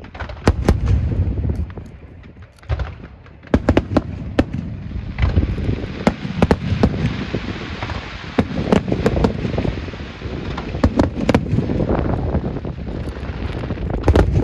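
Fireworks going off: a volley of sharp bangs, a short lull, then rapid bursts with crackling between them.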